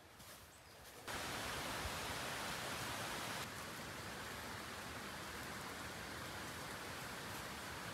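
After a quiet first second, a steady, even rushing hiss starts abruptly and holds level. It drops slightly in loudness about two seconds later and carries on unchanged.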